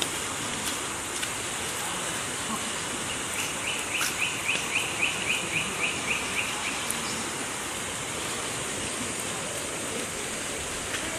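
Floodwater from an overflowing creek rushing steadily over and beside a gravel road. About three seconds in, a bird gives a rapid run of short high chirps, about four a second, for some three seconds.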